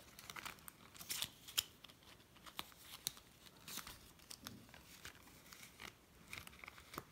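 Faint, irregular crinkling and crackling of a banknote being folded and slid into a clear plastic binder envelope.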